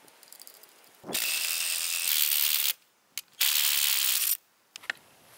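Cordless power tool driving a coil-spring compressor's threaded rods to let a strut spring decompress, in two runs: one of about a second and a half starting about a second in, then a shorter one after a brief pause.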